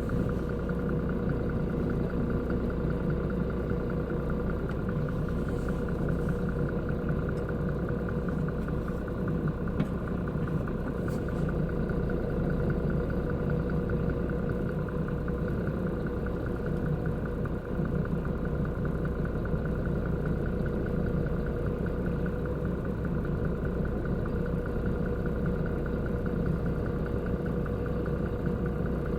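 Concrete mixer truck's diesel engine running steadily at low revs, with a constant even hum that does not change.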